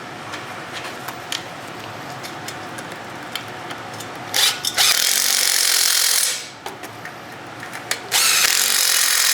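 Two loud bursts of a shop tool's steady hiss, each under two seconds, the first about four seconds in and the second near the end. Before them, light clicks and handling of parts.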